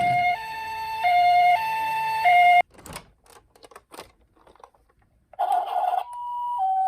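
Japanese-style two-tone 'pee-poh' ambulance siren of a toy ambulance minicar, alternating high and low tones about every 0.6 s, then cutting off suddenly about two and a half seconds in. A few faint clicks follow. Near the end the two-tone siren starts again at a slightly higher pitch.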